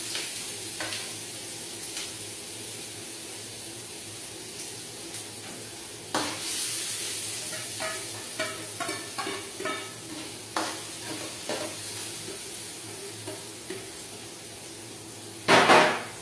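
Chopped red onion sizzling in hot cooking oil in a frying pan, with a steady hiss and now and then the knock of a utensil stirring it. A louder clatter comes near the end.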